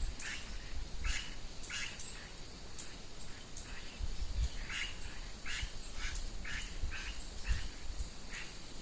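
Birds calling outdoors: a short call repeated about twice a second, mixed with high thin chirps and a faint steady high tone.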